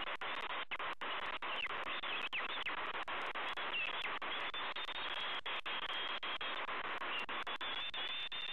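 Steady hiss from the nest-cam microphone, broken by brief dropouts, with faint high thin peeping calls from a bald eagle chick begging as it is fed.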